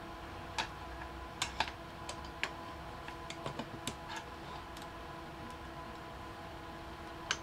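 Light clicks and taps of mounting clips being fitted to a Triton TA1200BS belt sander's housing: about a dozen short, irregular ticks, most in the first five seconds and one more near the end, over a faint steady hum.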